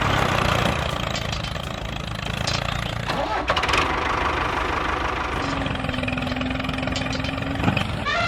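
Small engine of a miniature DIY tractor running steadily, with a few knocks about three seconds in and a steady hum that joins for a couple of seconds after the middle.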